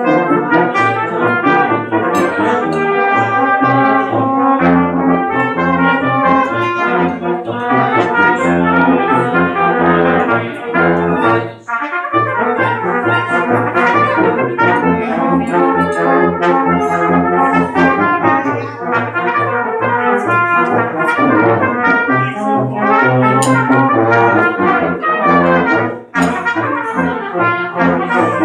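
Small brass band of trumpet, valved horns and tuba playing a lively march tune together, the tuba keeping a steady bass under the melody. The music drops briefly between phrases near the middle and again near the end.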